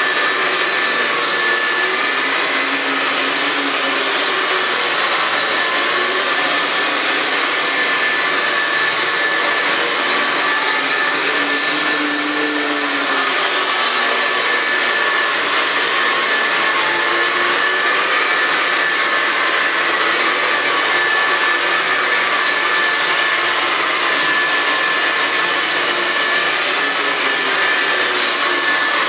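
Electric carpet-cleaning machine motor running steadily, a loud even rush of air with a constant high whine over it.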